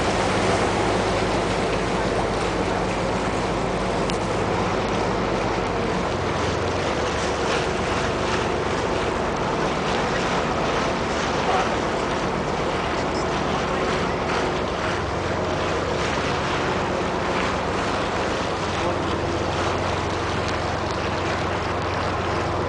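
Water taxi's engine running steadily under way, with water rushing along the hull. The engine's low note changes about six seconds in and again around fifteen seconds.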